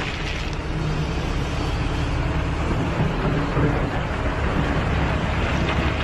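Heavy machine's diesel engine running steadily with a low rumble and hum, as from an excavator.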